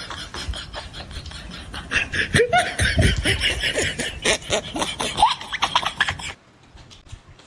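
Close-miked eating sounds: wet chewing, lip smacking and slurping as chicken is bitten and noodles are eaten, with a run of short squeaky pitched sounds in the middle. The sound cuts off abruptly about six seconds in.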